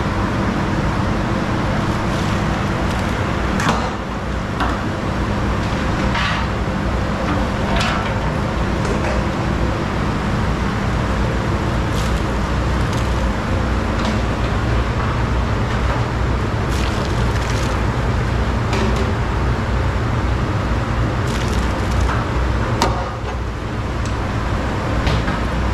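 Aluminium ladle and trays clanking and scraping every few seconds as cooked rice is scooped out of big cooking pots, over a steady low rumble.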